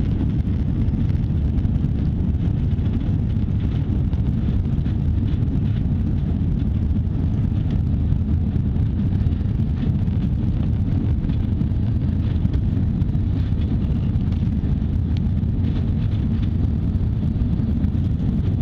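Steady low roar inside an airliner cabin from the jet engines and rushing air while climbing out after takeoff.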